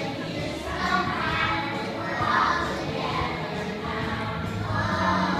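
A group of young children singing a song together as a chorus.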